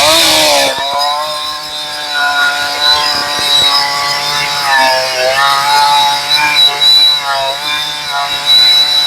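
A 372 two-stroke chainsaw with a freshly sharpened semi-chisel chain cutting through a log at full throttle. Its pitch sags under load and picks back up a few times, about two, five and seven and a half seconds in.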